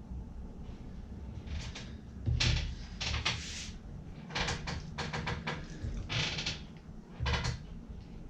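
Boning knife slicing through a Spanish mackerel on a nylon cutting board: a series of short scraping strokes, with two dull knocks on the board.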